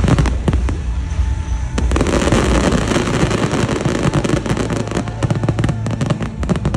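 Large public fireworks display: rapid, overlapping bangs of aerial shells bursting, thickening into a dense crackle about two seconds in.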